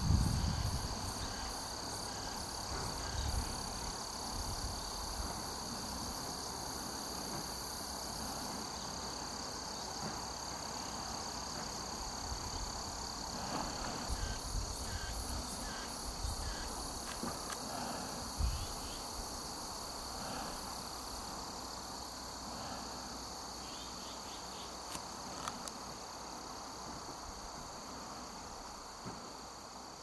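Insects, crickets among them, chirring steadily in several high pitches, slowly fading toward the end.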